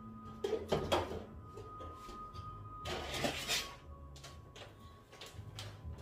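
Bottles and containers of houseplant food being gathered and handled on a table: several knocks and clicks, with a louder rustle about three seconds in.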